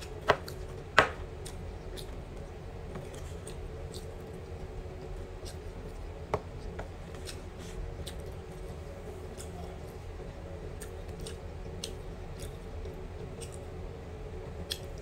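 Metal spoon scraping and knocking against a plastic takeaway food container while rice is scooped, with two sharp clicks in the first second and another about six seconds in. Faint scattered clicks of the spoon and eating follow, over a steady low hum.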